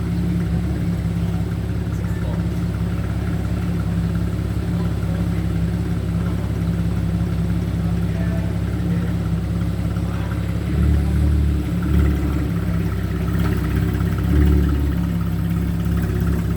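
Porsche 911 Carrera S (991.1) 3.8-litre flat-six engine idling steadily, then rising in a few short surges in the second half.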